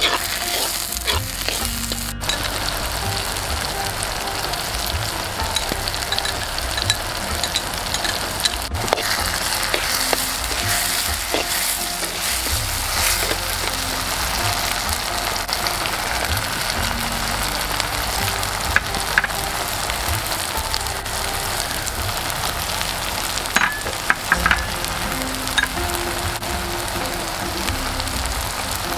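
Chopped onions and tomatoes sizzling steadily in hot oil in a clay pot, with occasional scrapes and clicks of a steel spatula stirring them, a small cluster of clicks a little over two-thirds of the way in.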